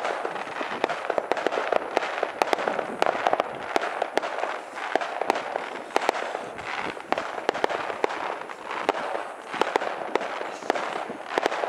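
Fireworks and firecrackers going off: a dense, irregular run of sharp pops and bangs over a steady crackling hiss.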